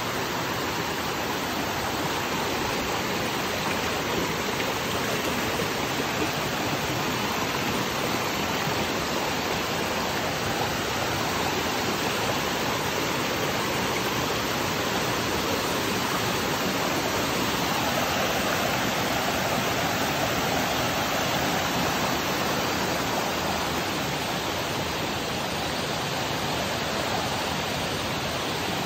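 Water of a rocky forest stream and small waterfall cascading over boulders: a steady, even rush.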